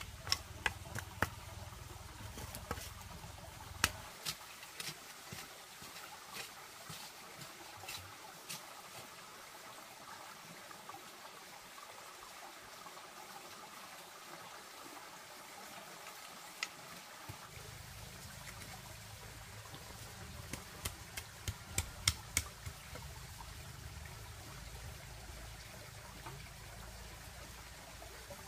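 Hand weeding with a small garden tool: short scattered clicks and scrapes as the tool and fingers work dry soil and pull weeds among seedlings, bunched in the first few seconds and again about two-thirds of the way through, over a steady faint hiss.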